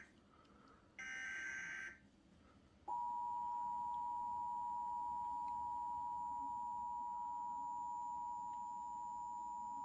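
Emergency Alert System header data tones end in a brief warbling burst about a second in. From about three seconds in, the EAS two-tone attention signal (853 and 960 Hz together) sounds as a steady, unbroken tone, announcing a severe thunderstorm warning.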